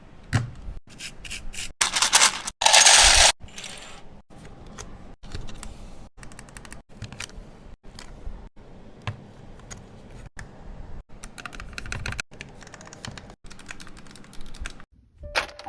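Mechanical keyboard clacking, with keys typed and keycaps pressed onto the switches in a run of short, crisp clicks. About two seconds in, a loud rasping noise lasts about a second.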